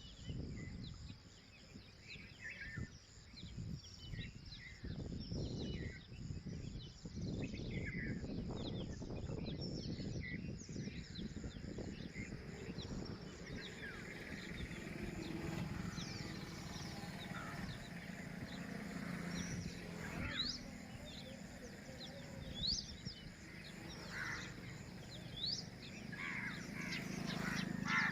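Birds chirping: many short, scattered chirps and peeps, some sliding quickly in pitch, over a steady low rumble.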